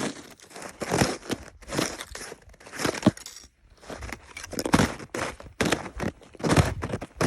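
Snow and ice crunching, one crisp crunch roughly every second.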